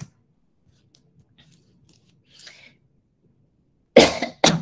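A single sharp click, then after a pause two short coughs near the end, the first louder and longer than the second.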